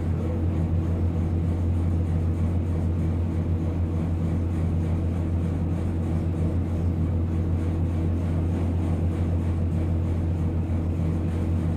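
Tugboat's diesel engines running underway, heard from inside the wheelhouse: a steady deep drone with fainter constant tones above it.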